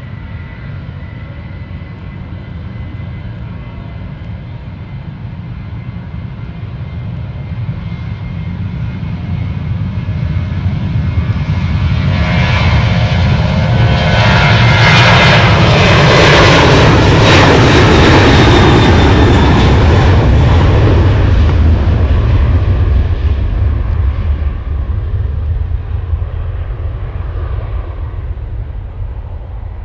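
Boeing 737-800's twin CFM56-7B turbofan engines at takeoff thrust during the takeoff roll: a deep rumble with a steady high whine at first, swelling to its loudest as the jet passes about halfway through, then fading as it rolls away down the runway.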